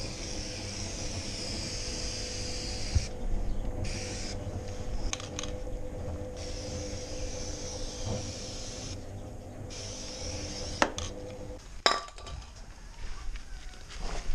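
Aerosol spray can hissing onto a dirt bike's drive chain in stretches of one to three seconds with short pauses, as the rear wheel is turned by hand. A few sharp metallic clinks come near the end.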